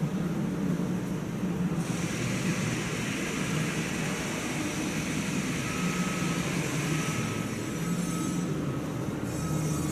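Steady machinery noise with a low hum and a hiss that turns brighter about two seconds in, and a faint high tone coming and going in the second half.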